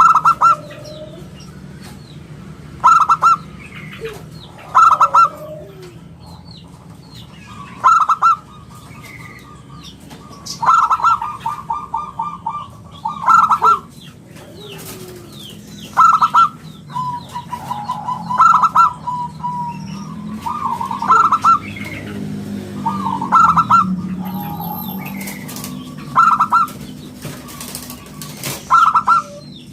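Zebra dove (perkutut) cooing: loud, short, clear coo phrases about every two to three seconds, some broken into a rapid stuttering trill. Faint chirps of other small birds and a low steady hum sit underneath.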